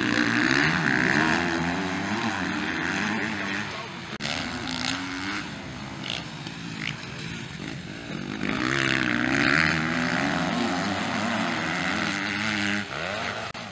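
450cc motocross bikes revving hard as they corner and accelerate past close by, the engine note rising and falling with throttle and gear changes. The engines are loudest near the start and again about nine seconds in.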